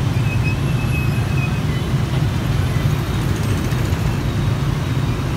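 Dense city street traffic, mostly motorbikes and scooters with cars and a bus among them, passing in a steady, loud low rumble of many engines.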